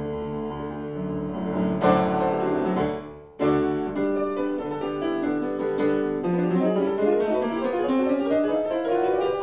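Piano music accompanying the film: a loud accented chord about two seconds in, a brief drop just after three seconds, then a rising run of notes toward the end.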